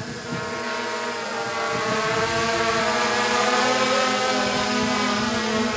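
An engine running steadily, growing louder over the first couple of seconds.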